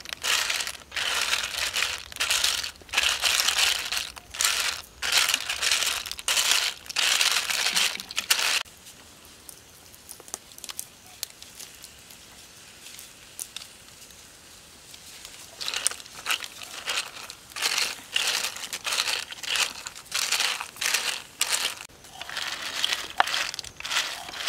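Clams in their shells being stirred in a metal wok with a spatula, the shells clattering and scraping against the pan in repeated bursts, with a pause of several seconds in the middle.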